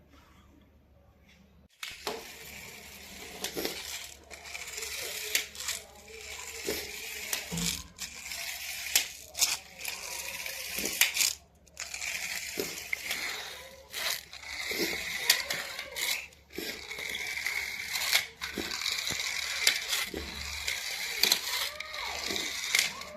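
Toy packaging being handled: continuous crinkling and rustling of plastic and cardboard, with frequent sharp clicks and taps. It starts suddenly about two seconds in.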